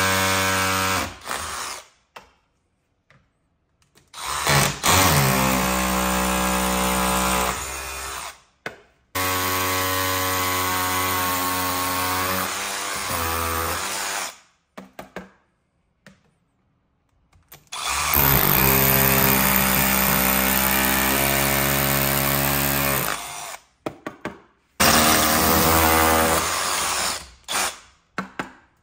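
Power drill running in five bursts of a few seconds each, the trigger squeezed and released, its motor pitch stepping up and down between speeds.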